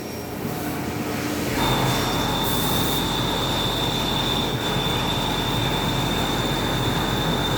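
1-inch indexable drill in a Haas VF4 CNC mill cutting into the workpiece: machine running, then about a second and a half in the cut starts and a steady high-pitched squeal holds over the noise of the machining.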